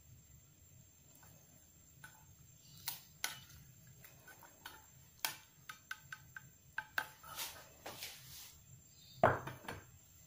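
Metal tongs clicking and scraping against a stainless steel saucepan while pieces of braised lung are lifted out, in a string of light irregular clicks. Near the end comes one louder knock as a pan is set down on the stove.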